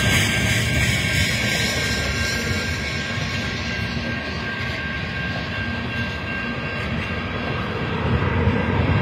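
Freight train tank cars rolling past on the rails: a steady low rumble, with a thin, steady high tone held over it.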